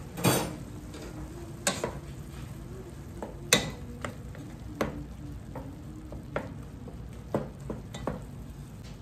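Ground meat sizzling as it browns in a large pot while a wooden spatula stirs and scrapes it, with several sharp knocks of the spatula against the pot.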